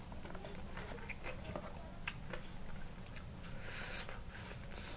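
A person chewing and biting food close to the microphone: a stream of small mouth clicks and smacks.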